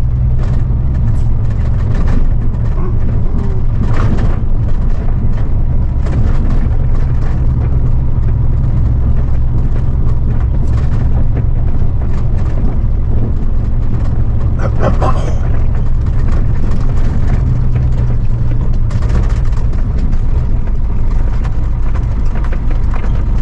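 Heavy truck's diesel engine running steadily as it drives a rough dirt track, a loud low drone, with a couple of short rattles from the truck.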